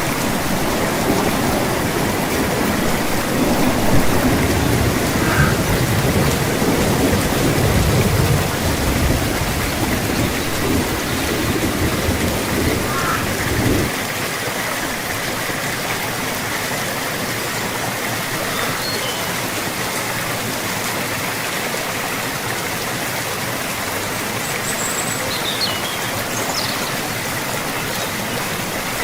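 Steady rain falling, an even hiss throughout. A deep low rumble underlies the first half and cuts off abruptly about halfway through, leaving the rain alone.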